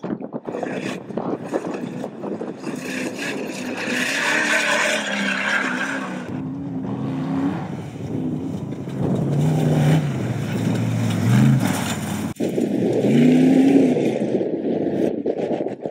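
Off-road race vehicles passing at speed, their engines revving up and down in pitch over a steady rush of tyre and dirt noise. The sound changes abruptly about twelve seconds in, where another vehicle's engine takes over.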